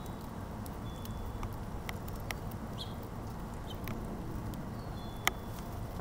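Light scattered clicks and taps of a house finch pecking seed at a hanging feeder's tray, over a steady low background rumble, with a couple of brief chirps and one sharper click about five seconds in.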